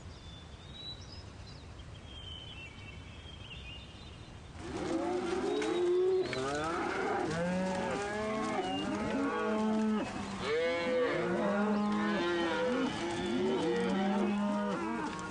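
After about four seconds of quiet with a few faint high chirps, a herd of African buffalo starts calling: many overlapping deep lowing moos and grunts that rise and fall in pitch, some held as long low notes.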